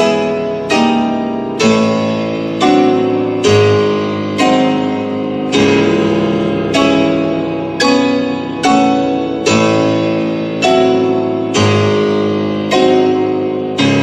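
Piano playing a slow, even series of full chords, about one a second, each struck and left to ring and fade before the next.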